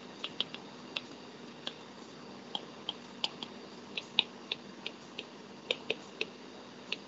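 Irregular sharp clicks of a stylus tip tapping on a tablet's glass screen while handwriting, about two or three a second, over a faint steady background hum.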